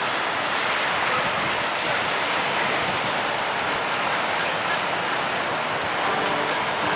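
Small sea waves breaking and washing on the shore as a steady rushing, with a short high chirp three or four times.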